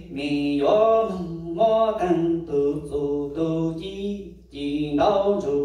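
A man chanting Hmong txiv xaiv, the sung verse of mourning, into a microphone: long held, wavering notes in phrases, with a short break about four and a half seconds in.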